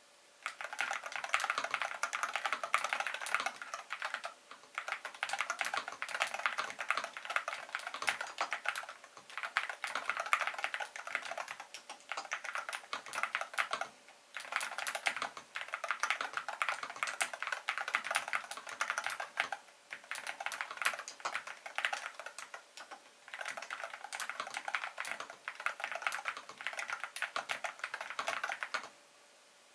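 Cherry MX 8.2 Pro TMR TKL keyboard being typed on quickly, its magnetic switches clacking in fast runs. The runs are broken by short pauses every few seconds.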